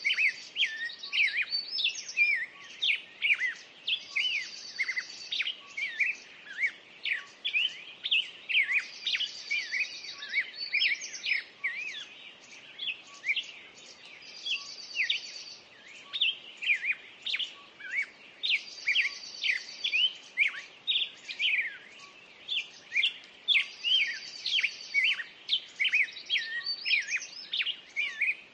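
Several birds singing together in dense overlapping chirps and whistles, with one buzzy trill repeating about every five seconds.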